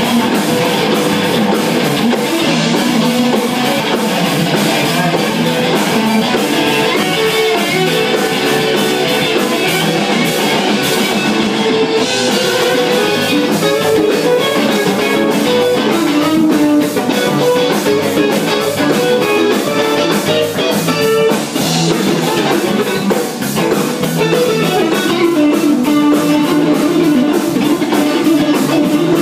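Live band jamming: electric guitar playing over a drum kit with a steady beat.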